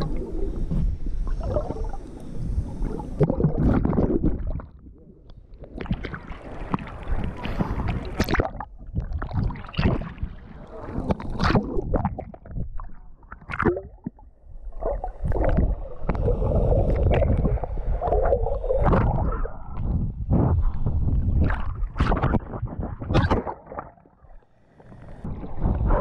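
Muffled underwater sloshing and bubbling of sea water churning around a submerged camera, in irregular loud surges with short sharp knocks, dropping away briefly twice.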